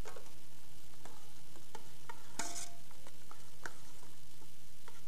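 Risotto being stirred and stock ladled from a stockpot: light clinks and taps of a utensil against the pots, with a brief hiss of sizzling about halfway through.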